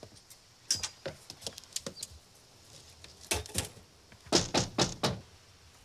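Light steps and taps, then four quick, loud knocks on a wooden door a little past halfway through.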